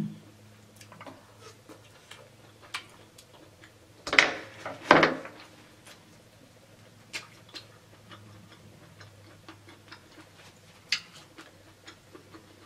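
Close-miked eating of king crab leg meat: scattered small wet clicks and smacks of chewing, with two louder bursts of mouth noise about four and five seconds in.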